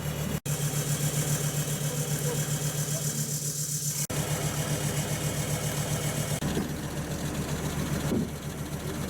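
Diesel engine of a mud-stuck off-road vehicle idling steadily with an even, low pulsing beat.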